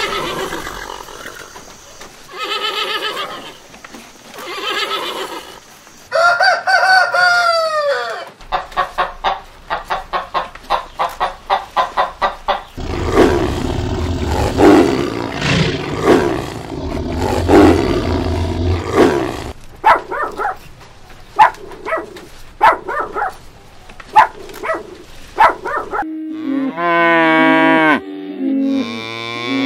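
A string of different animal calls one after another, the loudest a long, low stretch in the middle, with cattle mooing near the end.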